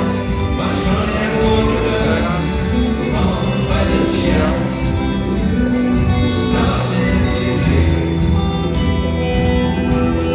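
Live rock band playing through a concert PA: loud, continuous music in a passage without clear lead vocals.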